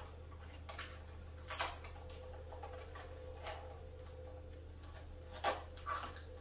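Handling noises as a LiPo battery pack is worked into an RC car's battery compartment: about five short light knocks and clicks of plastic, the sharpest about a second and a half in and near the end, over a steady low hum.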